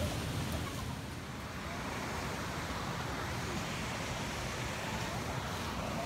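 Steady rush of flowing river water from a waterfall, with a low, unsteady wind rumble on the microphone.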